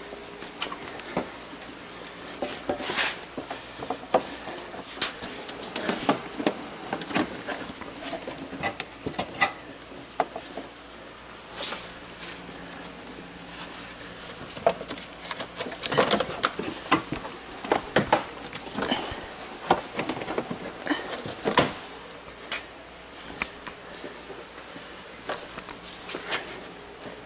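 Scattered, irregular clicks, taps and knocks of hands and tools working on a car's front bumper as it is fitted, thickest in the middle of the stretch.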